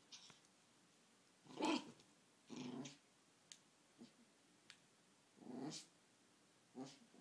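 Chihuahua giving short play growls, four brief bursts with pauses between, the second the loudest. A few faint clicks fall between them.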